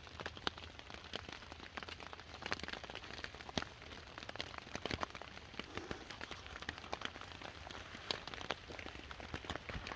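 Steady rain falling, with many single drops ticking sharply and irregularly over a constant patter.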